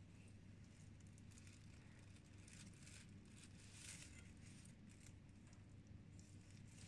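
Faint soft tearing and squishing of a steamed whole chicken being pulled apart with metal chopsticks, a little louder about halfway through.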